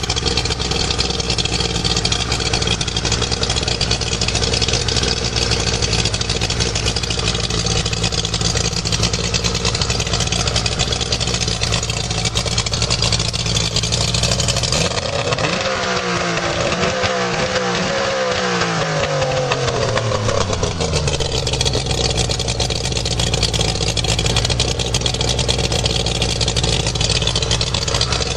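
1995 Mercury 60 hp two-stroke outboard, a three-cylinder engine, running with its cowling off. About fifteen seconds in its speed rises, then it falls back over several seconds to a steady idle.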